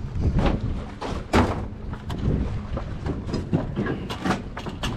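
Irregular knocks and thuds of footsteps and handled gear on a wooden pier's planks, with a low rumble underneath.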